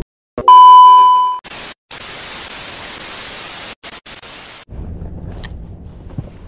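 Edited TV no-signal effect: a loud steady beep at about 1 kHz, like a test tone, for about a second, then TV static hiss with a few brief dropouts for about three seconds. Near the end the static cuts off and quieter outdoor ambience from the boat comes back.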